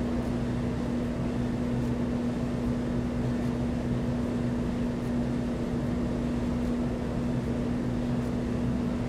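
A steady mechanical hum: a constant low drone over even background noise, unchanging throughout.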